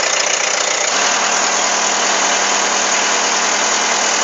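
Diesel engine of a D30A bulldozer running steadily at idle, a few minutes after a cold start. A steady low hum grows stronger about a second in.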